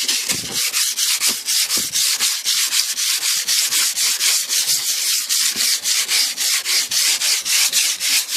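Sandpaper rubbed back and forth by hand over the painted body of a 1988 Cadillac DeVille in quick, even strokes, scuffing the old paint so new paint will stick.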